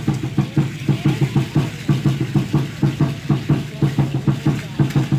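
Aztec dance drum (huehuetl) pounding a fast, steady beat, with the dancers' seed-pod ankle rattles shaking along.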